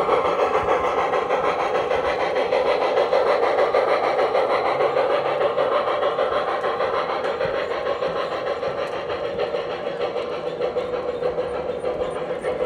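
Train running along the rails: a steady rolling noise with a fast, even clatter, slowly getting quieter over the second half.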